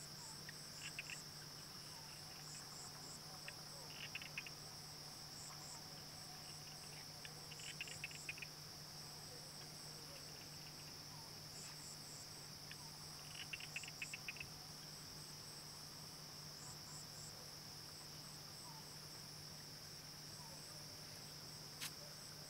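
Faint, steady chorus of crickets and other insects: a continuous high-pitched buzz with pulsed chirping over it. Short bursts of rapid ticking come through a few times, with a steady low hum underneath.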